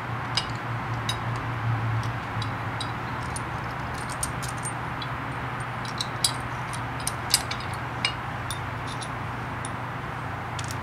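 Small scattered metal clinks and ticks as a bolt, washer and nut are handled and threaded on at the engine's cylinder head mounting bracket. The sharpest clinks come about six and seven seconds in, over a steady low hum and hiss.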